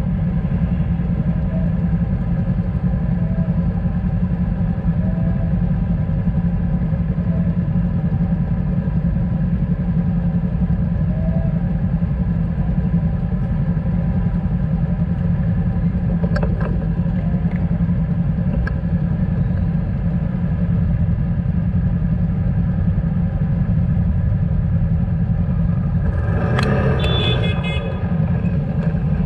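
Motorcycle engines idling in stopped street traffic, a steady low rumble. There is a brief louder burst of noise about three seconds before the end.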